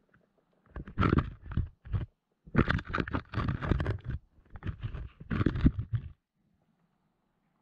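Muffled knocks, scrapes and rumbles through an underwater camera's waterproof housing as fish strike at the chicken-liver bait fastened to it, coming in irregular bursts that stop about six seconds in.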